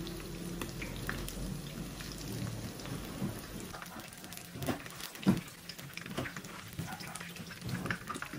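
Lumpia spring rolls deep-frying in hot oil in a wok: a steady crackling sizzle, with two louder knocks about halfway through.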